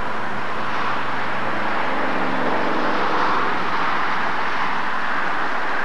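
Steady rushing background noise, a little louder about three seconds in, with no distinct event standing out.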